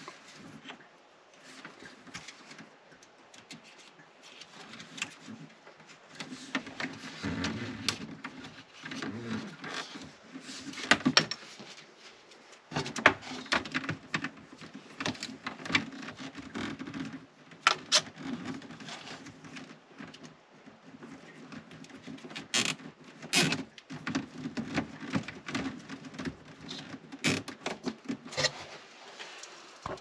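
Hands handling the cords and fittings on top of a plastic sink-pump basin: irregular clicks, taps and scraping, with no pump running.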